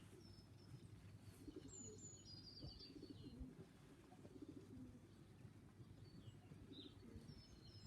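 Faint pigeons cooing around a loft, with a small bird's quick high chirping phrases near the start and again at the end.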